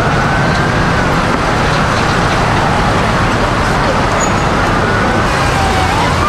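Emergency vehicle siren wailing, its pitch gliding slowly up and down, over a steady loud roar of noise. The siren grows stronger near the end.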